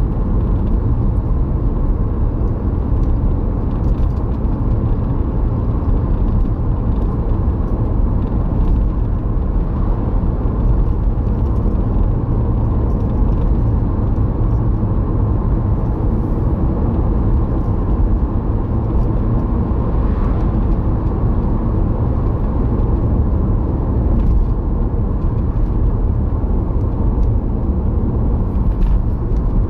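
Steady road and engine rumble inside a moving car's cabin at about 45 to 50 mph.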